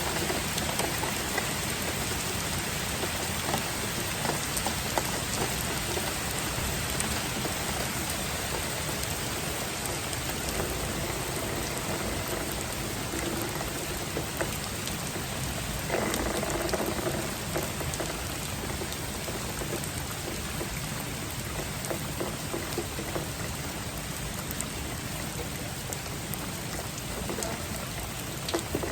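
Steady rain falling, an even hiss with many individual drops clicking through it.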